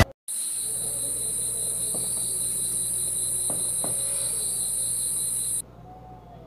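A steady, high-pitched insect trill that cuts off suddenly near the end.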